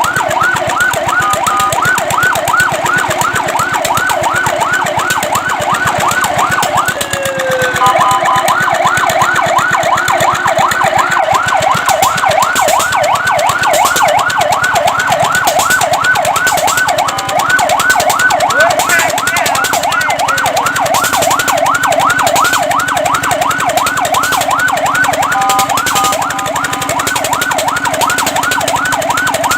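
Fire truck siren in a fast yelp: a rising and falling wail repeating several times a second, loud throughout. It breaks off briefly with a falling glide about seven seconds in, and short steady tones cut in a few times.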